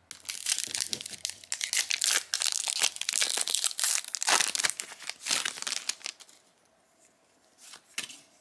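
A trading-card booster pack wrapper crinkling and tearing as it is opened by hand, dense crackling for about six seconds, then a single soft tap near the end.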